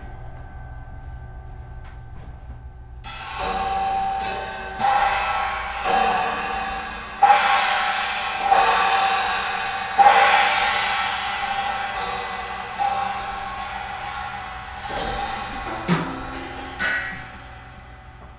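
Improvised percussion: cymbals struck again and again, their ringing wash building over a quieter steady drone. The cymbal playing comes in about three seconds in, with the loudest strikes near the middle, and it thins out toward the end.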